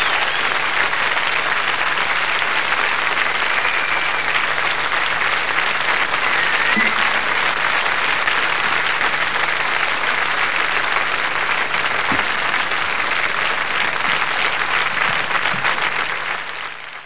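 Large concert audience applauding steadily, fading out near the end.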